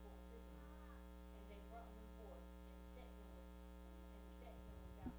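Steady electrical mains hum, with a woman's voice faintly reading aloud beneath it and a short knock near the end.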